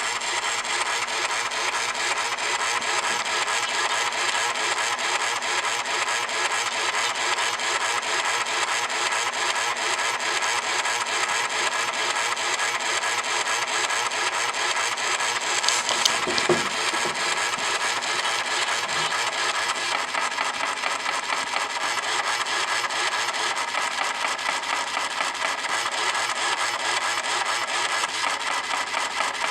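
Headlight leveling motor in the left headlamp of a Suzuki Jimny JB23 running on without stopping, a steady mechanical noise: the leveler motor is malfunctioning. A single short knock about sixteen seconds in.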